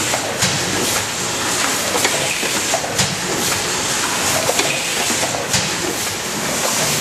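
Soup filling line running: the chain conveyor and machinery make a steady hissing rattle, with sharp clicks at irregular intervals of about a second.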